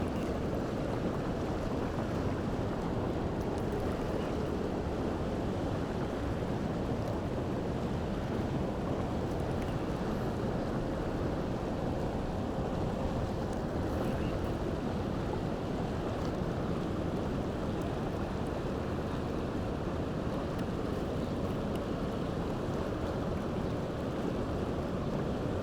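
Steady rushing noise of wind on the microphone mixed with moving river water, with a few faint clicks.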